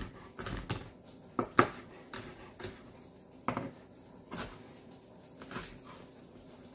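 Chef's knife chopping garlic cloves on a plastic cutting board: about ten sharp, irregularly spaced knocks of the blade against the board, the loudest about a second and a half in.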